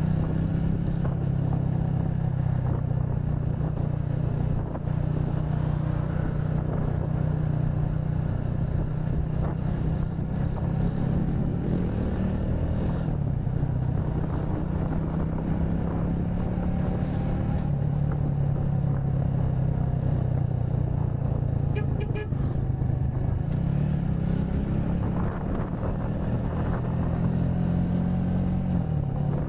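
Motorcycle engine running steadily while riding in traffic, its pitch drifting up and down a little with the throttle, over road and wind noise.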